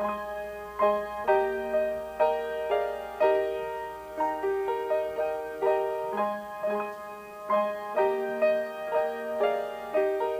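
Piano playing a slow, gentle instrumental piece: a note or chord struck about every half second, each fading until the next.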